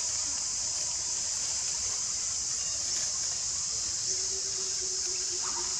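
Steady high-pitched insect chorus, even and unbroken throughout, with a faint low steady tone joining about four seconds in.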